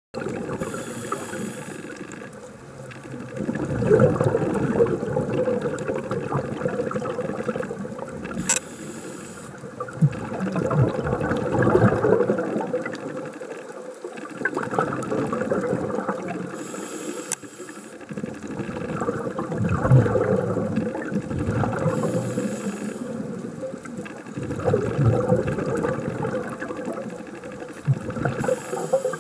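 Scuba diver breathing through a regulator underwater: each exhale sends out a long, crackling rush of bubbles lasting a few seconds, with quieter gaps between, in a slow cycle that repeats throughout.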